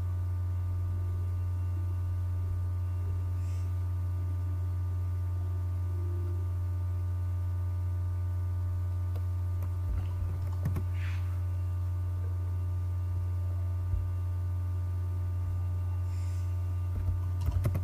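Steady low electrical hum with a stack of faint steady overtones, like mains hum picked up on the recording. A few faint clicks come about ten seconds in, at fourteen seconds and near the end.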